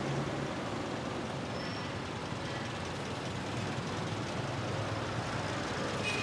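Steady road traffic noise from cars on a street, an even rumble and hiss with no single event standing out.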